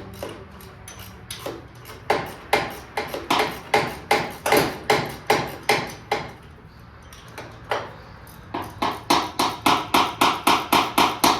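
Hand tool working a steel motor-mount bolt: a run of sharp metallic strikes, about two or three a second, then after a pause about two-thirds of the way in, a faster run of about four a second.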